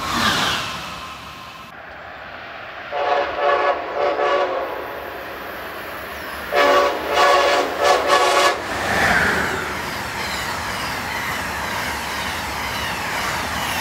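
Amtrak train's air horn sounding two groups of short blasts as the train approaches, the first about three seconds in and the second about six and a half seconds in. A steady rush of the train passing over the rails follows.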